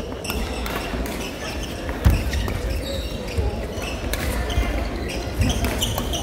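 Badminton doubles rally: repeated sharp racket strikes on the shuttlecock, shoes squeaking briefly on the court mat and feet thudding, one heavy thud about two seconds in.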